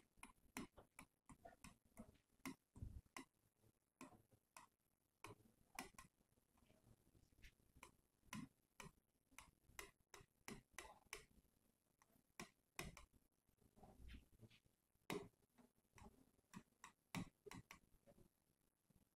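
Faint, irregular ticks and taps of a stylus tip on the glass of an interactive display as words are handwritten stroke by stroke.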